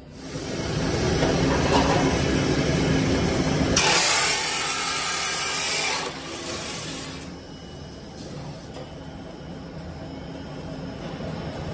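Automatic cutter on a PVC pipe extrusion line sawing through the pipe, loud for about four seconds. A sharp hiss follows for about two seconds, then the line runs on more quietly.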